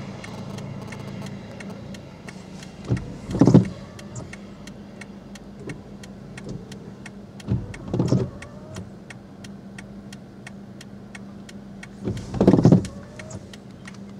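Inside a car with the engine running: a steady low hum, a short whirring sweep about every four and a half seconds, and fast, even ticking throughout.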